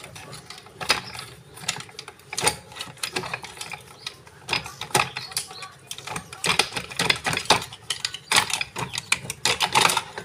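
Screwdrivers prying and scraping at the metal housing of a demolition hammer held in a vise: irregular clicks, taps and scrapes of metal on metal as the casing is worked loose.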